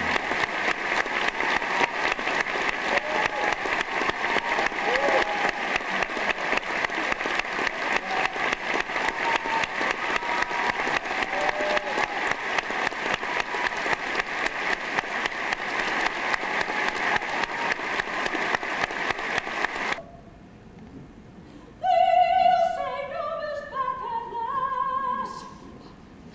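Theatre audience applauding hard, with a few shouts rising through the clapping, for about twenty seconds until it cuts off abruptly. After a short hush a woman sings a few sustained, gliding lines in a theatrical style.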